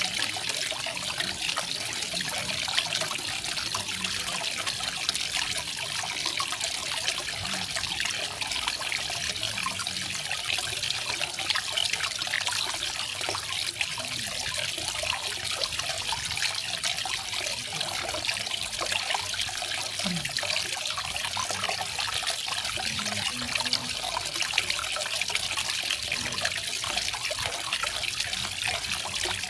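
Small garden waterfall: water falling and trickling steadily, a constant hiss-like splashing with no pauses.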